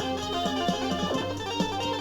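Guitar music: plucked guitar notes over held tones and a steady low bass.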